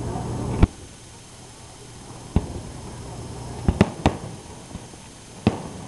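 Aerial firework shells bursting overhead: a series of sharp, separate bangs. The loudest comes just over half a second in, then one alone, a quick cluster of two or three, and another near the end.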